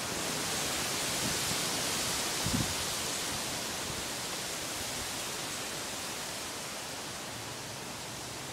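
Strong gusting wind rushing through palm fronds and trees: a steady hiss that swells over the first few seconds and then eases slowly. A brief low thump comes about two and a half seconds in.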